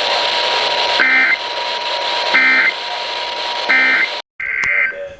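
Emergency Alert System SAME data bursts over hissy radio static: three short, buzzy digital bursts about 1.3 s apart, the end-of-message code that closes a flood warning. After a brief dropout near the end, one more short burst comes in.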